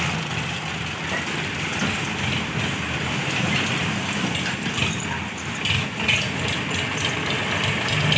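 Heavy diesel engine idling steadily, with a few brief clatters about two-thirds of the way through.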